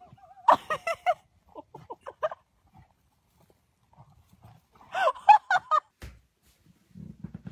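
Miniature pony whinnying twice: a shaky, pulsing call about half a second in and another about five seconds in, with softer short calls between them.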